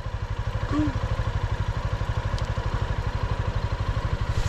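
Motorcycle engine idling steadily, with an even, rapid low putter.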